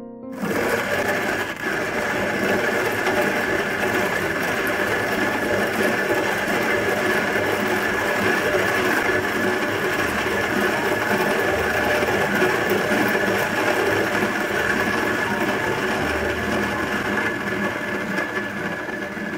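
Lyn Weber HG-1 hand grinder's 83 mm Mazzer conical burrs grinding coffee beans at a fine setting, one turn clockwise from the zero point. A steady grinding noise starts about half a second in and eases off a little near the end.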